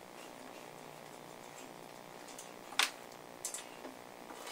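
Faint steady hum, broken by one sharp metallic click nearly three seconds in and a couple of lighter ticks soon after, as metal parts of a belt/disc sander are handled.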